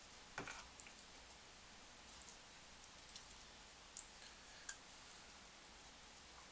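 Near silence with a few faint, sharp clicks and taps scattered through it, the clearest about half a second in and near the five-second mark.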